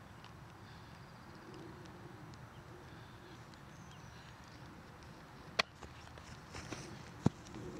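Quiet outdoor field ambience. About five and a half seconds in, a baseball smacks into a leather fielder's glove as a fly ball is caught. A second, louder sharp crack follows near the end.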